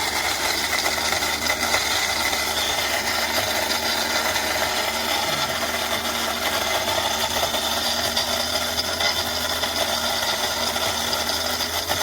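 GROSCHE Bremen electric burr coffee grinder running steadily, its motor humming as the burrs grind a few coffee beans.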